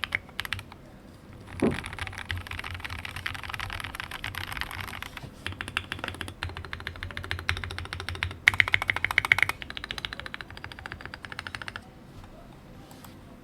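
Fast typing on a mechanical keyboard with lubed, filmed Gateron Merlot linear switches, plateless on a BM60 PCB in a resin case, under SA ABS keycaps. A dense run of keystrokes with a louder, faster flurry about two-thirds of the way in, and the typing stops near the end.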